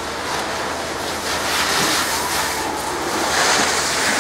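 Skis scraping and hissing on snow as a skier carves turns through slalom gates, swelling in the middle and again near the end.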